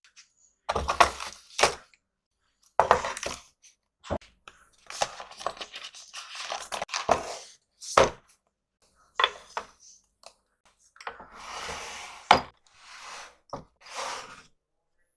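Small stationery items handled and set down one after another: irregular clicks and clinks mixed with short rattling, sliding passages, with brief pauses between.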